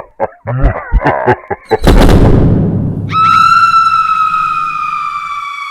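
Horror sound effects: a few quick pulsing beats, then a loud boom about two seconds in that slowly dies away, then a long high-pitched shriek that sinks slightly in pitch.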